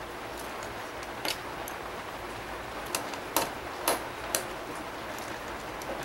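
A handful of light clicks and taps from small laptop parts and a screwdriver being handled during reassembly, the strongest in the middle, over a faint steady hiss.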